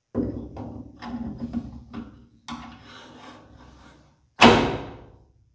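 Helix cutterhead and its bearings scraping and rubbing against the jointer's cast-iron housing as it is worked back into its seat, in two stretches of a couple of seconds each. A single loud clunk comes about four and a half seconds in and rings away for nearly a second, the head dropping into place.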